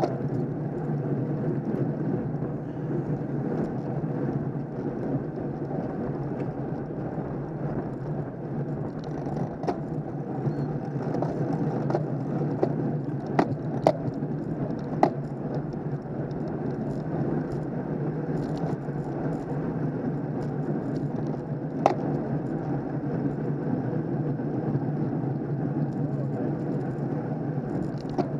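Steady wind and road noise from riding a road bicycle uphill in a pack, with a few sharp clicks about halfway through and one more a little later.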